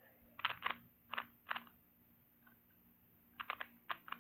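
Plastic Rubik's Cube layers being twisted by hand: a series of short clacking clicks, about four spaced turns in the first second and a half, then a quick run of several turns near the end.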